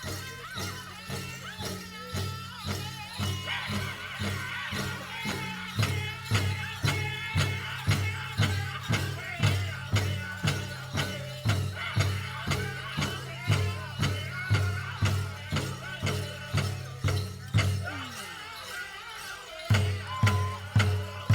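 Powwow drum group singing over a steady, even drumbeat of about three strokes a second. Near the end the drum softens for a moment, then comes back with loud strokes.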